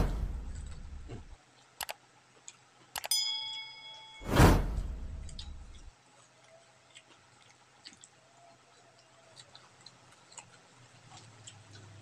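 Edited-in sound effects: a loud sudden burst that fades over about a second at the start, a short bright chime about three seconds in, and a second loud burst about four and a half seconds in, fading out by six seconds. After that only faint small clicks of eating by hand.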